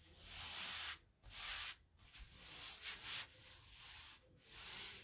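A sticky adhesive silk-screen transfer being rubbed against a fuzzing cloth and pulled away to take off some of its tack, in about five short rubbing swishes.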